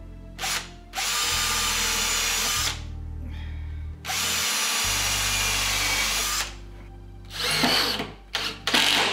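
Makita cordless drill drilling into MDF, running in two long steady bursts of a couple of seconds each, then a few short bursts near the end.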